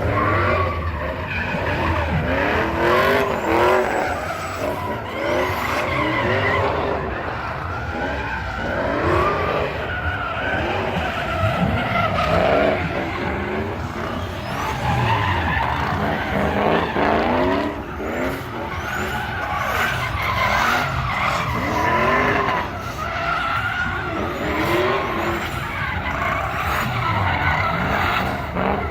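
Car engine revving up and down over and over, with tyres squealing.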